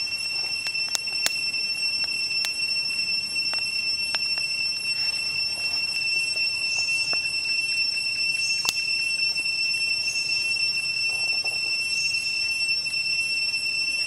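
Steady high-pitched drone of forest insects, with scattered sharp crackles and pops from the glowing charcoal under the grilling corn.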